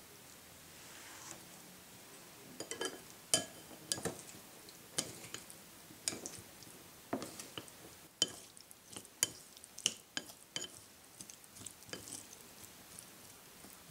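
Wooden chopsticks tossing pineapple salsa in a ceramic bowl, clicking and knocking irregularly against the bowl, starting a couple of seconds in.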